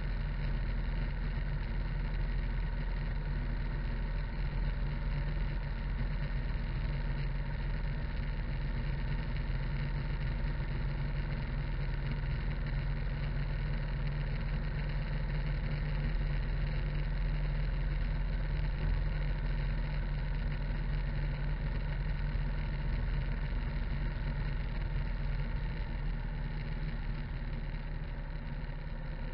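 Harley-Davidson V-twin engine running steadily as the motorcycle cruises down the road, easing slightly near the end.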